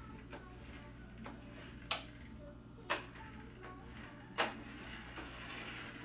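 A plastic toy remote-control car knocking into things as it drives across a kitchen floor: three sharp knocks about a second apart, the last the loudest, with faint ticking between.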